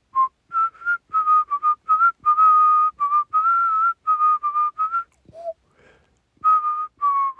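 A person whistling a tune: a run of short and held notes moving around one pitch, with a longer pause a little past five seconds before the tune goes on.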